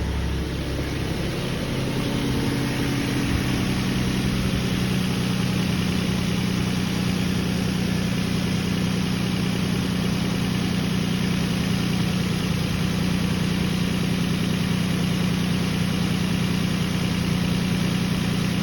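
2008 Nissan Frontier's 4.0 V6 engine idling steadily.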